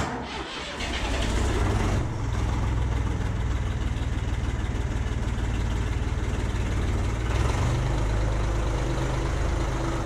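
IHC 633 tractor's diesel engine starting, settling into a steady run about two seconds in.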